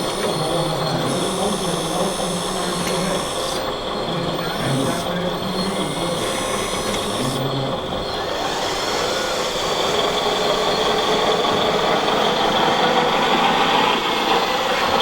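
Radio-controlled model construction machines running: a steady mechanical whir with a high whine, getting louder about two-thirds of the way through.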